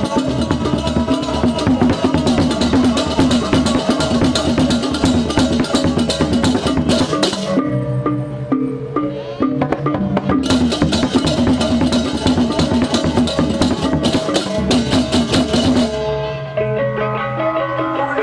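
Balinese baleganjur-style percussion music: fast, dense clashing of cymbals and drums over steady gong-like tones. It thins out for a couple of seconds about halfway, comes back, then gives way to a softer, more melodic passage near the end.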